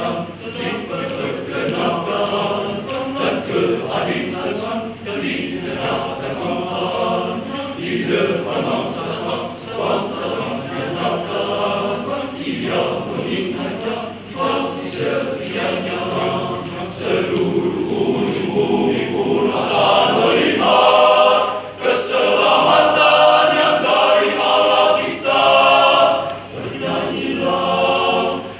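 Men's choir singing in parts, the sound swelling louder for roughly the last third.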